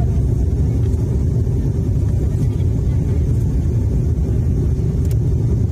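Steady low rumble of a Wings Air turboprop airliner in flight, with no distinct tones or breaks.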